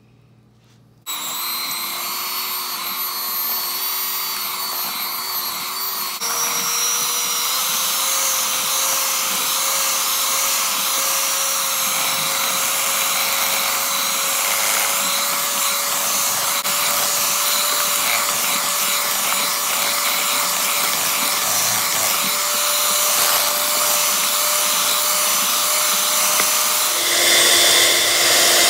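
Electric hand mixer starting up about a second in and beating sweet potato pie batter, its motor whining steadily. It steps up to a higher speed about six seconds in, the pitch creeping slowly upward, then changes speed again near the end, dropping in pitch and getting louder.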